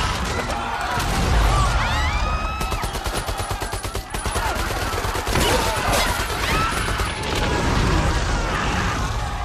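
Sustained automatic gunfire in long, rapid strings, over a steady low rumble and high rising and falling cries.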